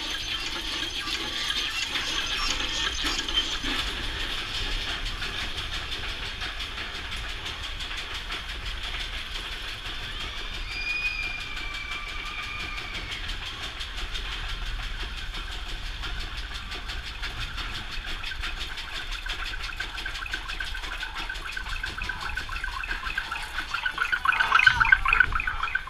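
Steel wild mouse coaster car climbing the chain lift, with a steady rapid clicking clatter from the lift chain. A short whistling tone comes about halfway. The rattle grows louder near the end as the car crests the top of the lift.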